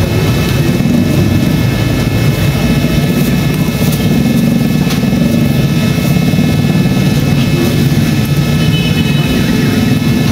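Loud, steady machine drone with a low hum and faint constant high whine, like a motor running nonstop; one faint click about five seconds in.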